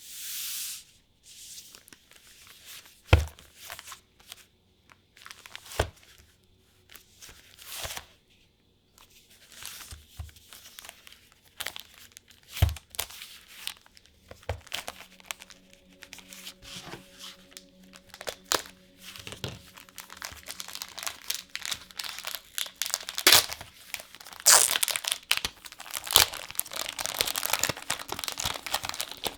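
Plastic trading-card packaging being handled and torn open: crinkling and rustling wrapper plastic with occasional sharp knocks on the table. The crinkling grows dense and louder near the end.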